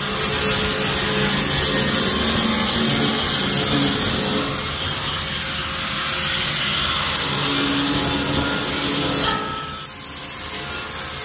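Angle grinder grinding down the sharp edges of sheet steel, a continuous harsh grinding noise that grows quieter about nine seconds in.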